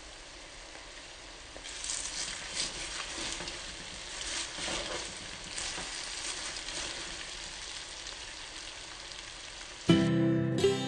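Young cassava leaves and dried anchovies sizzling in hot oil in a wok, stirred and tossed with a wooden spatula, which scrapes the pan from about two seconds in. Music starts near the end.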